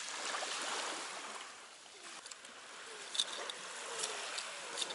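Small sea waves washing onto the shore: an even hiss that swells, ebbs away about two seconds in and swells again. A few light clicks in the second half come from a plastic waterproof phone pouch being handled.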